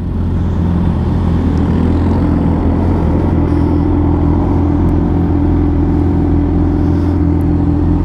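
Motorcycle inline-four engine running steadily at low revs as the bike rolls slowly along, in a low, even note.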